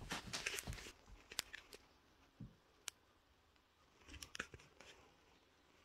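Quiet room with faint rustling and a scattering of small sharp clicks, mostly in the first second and a few more further on: handling noise from the phone being held.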